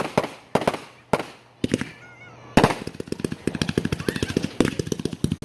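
Consumer fireworks finale: separate loud bangs about every half second, then from about two and a half seconds in a dense, rapid crackle of many reports.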